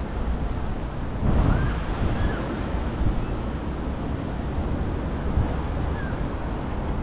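Wind rumbling on the microphone over a steady wash of sea surf, with a louder gust about a second in.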